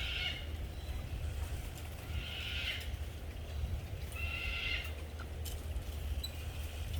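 Bamboo stems creaking against each other in the wind: a short raspy squeak about every two seconds, over a steady low wind rumble.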